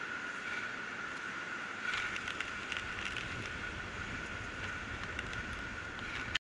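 Steady outdoor background hiss with a constant high-pitched whine. About two seconds in comes a short run of small clicks and rustles.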